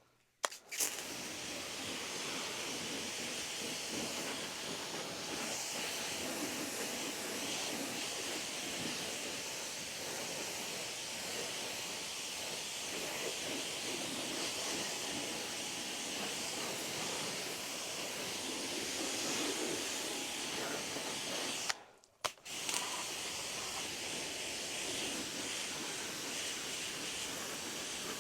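Water spraying from a hose nozzle in a steady hiss as a motorcycle is rinsed off after washing. The spray cuts out for a moment about three quarters of the way through, then starts again.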